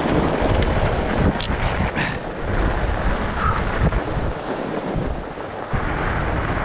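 Wind buffeting the microphone of a camera riding on a fat-tire e-bike moving fast down a snowy trail: a steady rushing rumble with no clear tones, changing character abruptly near the end.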